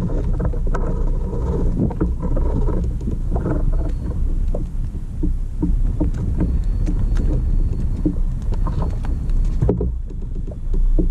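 Water lapping and slapping against the hull of a fishing kayak, with irregular small knocks over a steady low rumble.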